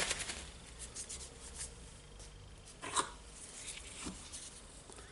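Faint rubbing and light clicks of small gearbox parts being handled and greased by hand, with a sharper tap about three seconds in and a smaller one about a second later.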